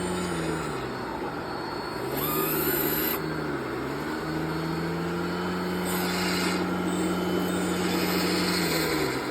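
A radio-controlled scale Liebherr 984 excavator running steadily with a machine hum. Its pitch sags briefly a few times as it works, with short bursts of hiss now and then.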